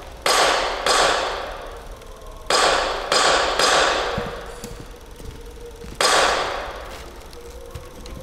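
A series of six sharp cracks or slaps at irregular spacing, three in quick succession in the middle. Each dies away slowly in a long echo.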